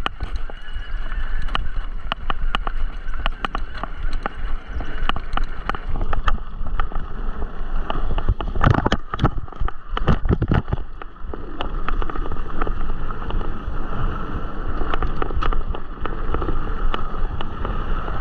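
Mountain bike riding fast down a dirt trail: tyres running over dirt under a steady low rumble, with frequent sharp rattles and knocks as the bike jolts over bumps, thickest about halfway through.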